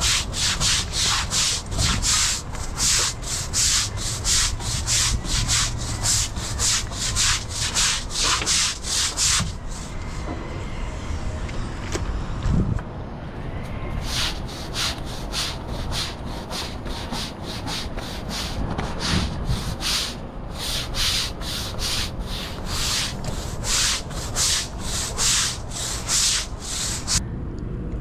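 Stiff deck brush scrubbed back and forth over a wet, soapy teak deck, a rasping stroke about twice a second. The scrubbing stops for a few seconds about a third of the way in, then resumes.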